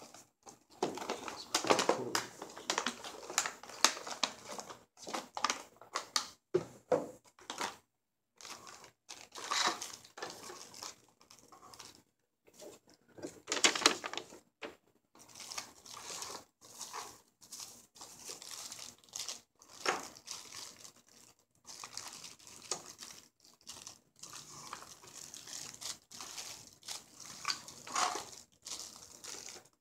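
Plastic packaging crinkling and rustling in irregular bursts: a clear plastic tray and plastic bags of action-camera mounts and accessories being handled, with light knocks and short silent gaps between.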